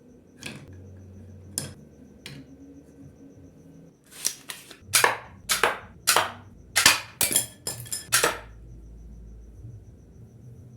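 A few light clicks, then a quick run of about ten sharp cracks over some four seconds, each with a short ring, like shots or hard impacts.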